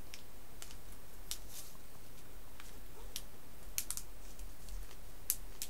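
Scattered light plastic clicks and crinkles as a small sponge container of screen-protector application solution is opened by hand, about a dozen irregular ticks, over a steady low hum.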